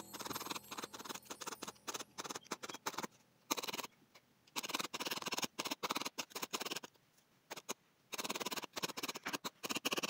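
Felting needle stabbing over and over through wool roving and felt into a foam pad: rapid crisp ticks in runs of a second or two, with short pauses between runs.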